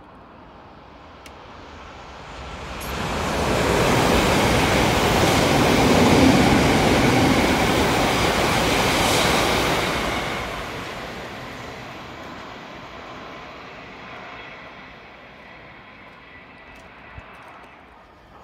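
A fast train passing through the station without stopping: the rushing noise of wheels on rail and moving air swells about three seconds in, stays loud for some seven seconds, then slowly fades away.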